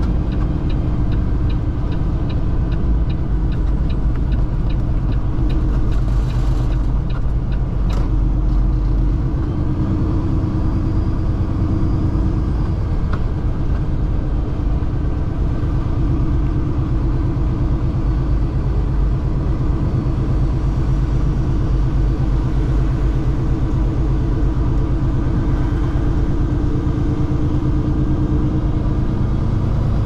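Semi-truck engine and road noise heard inside the cab while driving, a steady low rumble. A rapid, even ticking runs through the first several seconds, and there is a single sharp click about eight seconds in.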